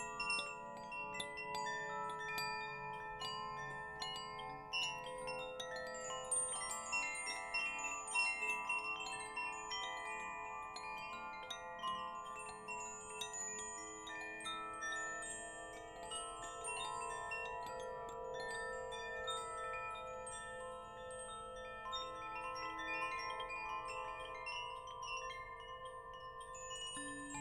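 Wind chimes ringing continually, struck at random so that many overlapping notes ring on for seconds each.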